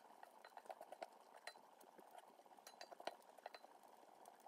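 Chopped cashews frying in coconut oil in a cast-iron skillet: a faint crackle of small pops, with light clinks and scrapes as a spatula stirs them in the pan.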